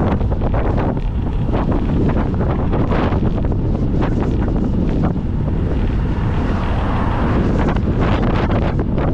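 Heavy wind noise on the microphone of a camera on a moving bicycle: a steady, loud low rumble with rapid flutters throughout.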